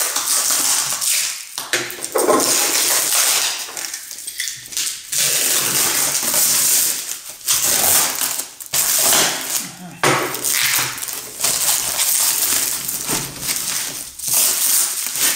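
Black plastic wrapping rustling, crinkling and tearing as it is cut with a utility knife and pulled off a cardboard box, in loud stretches broken by short pauses.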